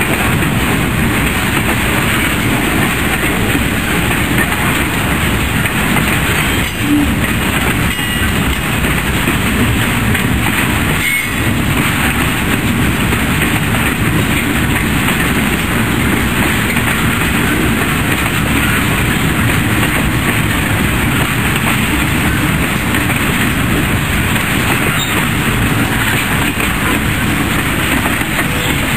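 Boxcars of a manifest freight train rolling past close by: a steady, loud rumble and clatter of steel wheels on the rails.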